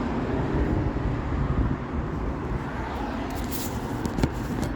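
Lennox outdoor heat pump units running: a steady whoosh of fan and compressor noise over a low rumble, with a sharp click near the end.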